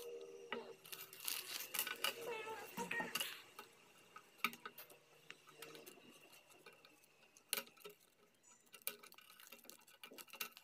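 Scattered small clicks and snips of plastic as robot-kit parts are cut from their plastic frames, with a brief faint murmur of voices about two to three seconds in.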